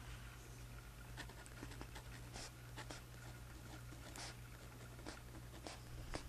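Pen-and-paper writing in a journal: soft, irregular scratching strokes with short pauses between them.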